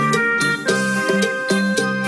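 Background music with a steady beat and held notes.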